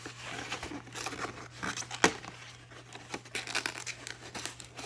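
Paper and plastic packaging rustling and crinkling as manuals are handled and pulled out of a cardboard box, with a sharp click about two seconds in.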